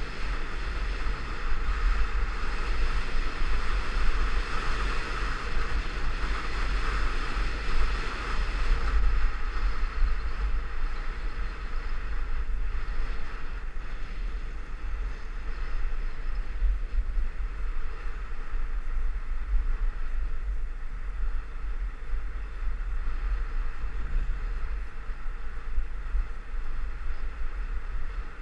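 Wind rushing over the microphone of a skier's body-worn camera while gliding down a groomed run, a steady rumble mixed with the hiss of skis sliding on packed snow, a little louder in the first several seconds.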